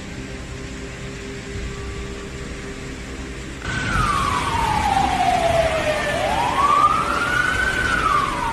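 A siren wailing, starting abruptly about three and a half seconds in: a slow fall in pitch, a rise, then falling again near the end. Before it there is only steady background noise.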